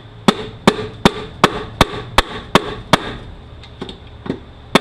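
Repeated sharp metal knocks, about eight in an even rhythm of two or three a second, then a short pause and a few more near the end: a long screwdriver being struck to drive the stuck front cover out of a 5-45RFE automatic transmission.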